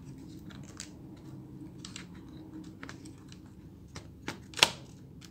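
Small plastic and metal clicks and taps as a replacement hard drive and its SATA connector are fitted into a Dell Latitude 5470's drive bay, with one louder click about four and a half seconds in.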